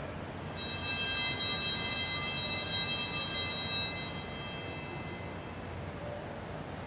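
Altar bells ringing for about four seconds, then fading, marking the elevation of the chalice after the consecration at Mass.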